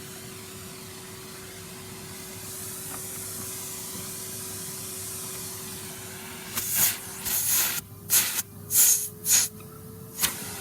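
Vacuum cleaner running with a steady hiss and motor whine. In the second half comes a series of five or six loud rushing surges of airflow as the nozzle is worked against something, while the whine rises slightly.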